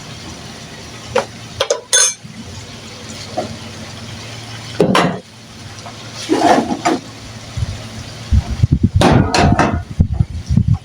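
Kitchen clatter of pots, lids and utensils knocking against each other, over a steady low hum. A dense run of low thumps starts near the end.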